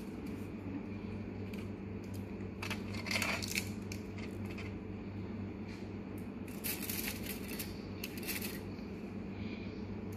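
Skewers and foil-lined serving plates being handled: a few brief rustling, crinkling foil and scraping sounds, about three seconds in and again twice near the end, over a steady low hum.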